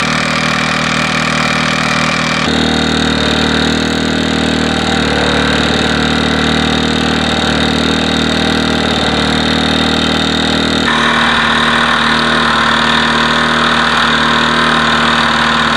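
Mamod Minor 1 disc-crank toy steam engine running fast and steadily under full steam, a continuous mechanical running noise. Its character shifts abruptly about two and a half seconds in and again about eleven seconds in.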